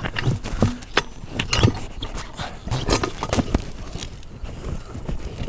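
Sealey TC960 steel manual tyre changer being worked: irregular metal clanks and knocks with scraping as the wheel is shifted on the frame and the bead-breaker lever is pushed down onto the tyre.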